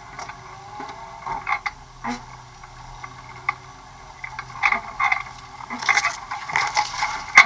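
Off-road buggy driving over rough ground: irregular rattles and knocks from the body and roll cage over a faint steady engine hum, getting busier and louder in the last few seconds.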